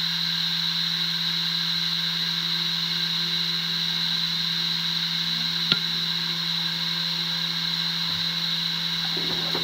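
Western Digital Raptor WD1600ADFD 10,000 RPM hard drive spinning at full speed: a steady hum with a high whine over it, and one sharp click of the heads a little past halfway.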